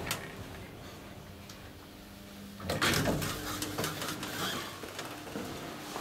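Elevator car humming steadily after a click, then its sliding doors opening with a loud rush about two and a half seconds in, followed by a short steady tone and a few knocks and clicks.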